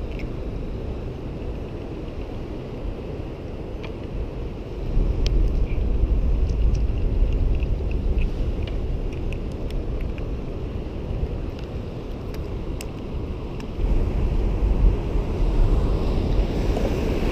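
Wind buffeting the microphone, with two stronger gusts, one about five seconds in and one near the end, over a steady wash of surf. Faint small clicks come from hands working a hook out of a fish.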